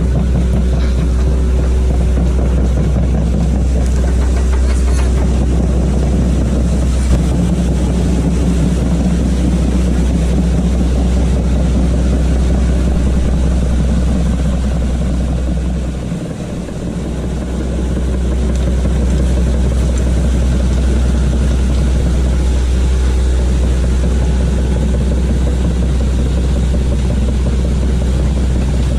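Hitachi excavator's diesel engine running steadily, with a deep continuous rumble that dips briefly about sixteen seconds in.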